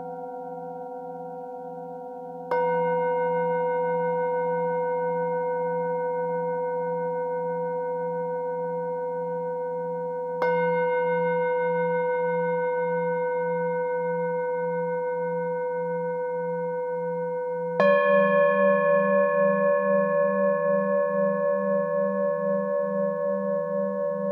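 Singing bowls struck with a mallet three times, about eight seconds apart, each strike setting a bowl ringing on over the fading tones of the others. The lowest tones waver with a slow pulse, and the last strike is the loudest.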